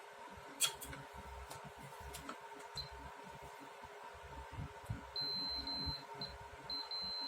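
Meter's beeper sounding a steady high tone, broken a few times at first and then held, as its probes make contact on the compressor's terminals. Before it, a few light clicks of the probes and meter being handled.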